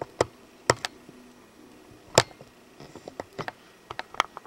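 Irregular sharp clicks and taps of a camcorder being handled and adjusted, about a dozen of them spaced unevenly, loudest about two seconds in.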